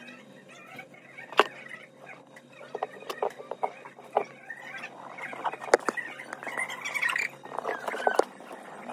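Small handling sounds of a phone repair: scattered sharp clicks and taps, with three louder ones, and a stretch of crinkling from a squeezed metal glue tube in the second half.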